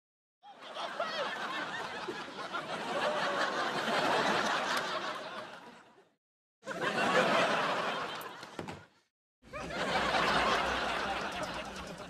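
Studio-audience laugh track from a 1999–2000 Nickelodeon sitcom: three separate bursts of crowd laughter, each cut off into a moment of dead silence. The first swells over about four seconds and fades out, and the next two are shorter.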